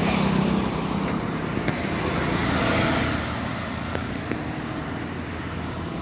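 Street traffic noise: a steady rush of motor vehicles, louder in the first second and again two to three seconds in as vehicles pass.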